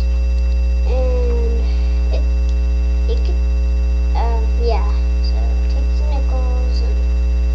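Loud, steady electrical mains hum, with a ladder of steady tones above it.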